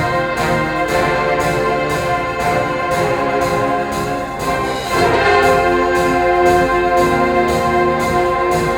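Orchestral music with brass, trumpets prominent, playing a steady rhythmic passage; about five seconds in it swells and grows slightly louder.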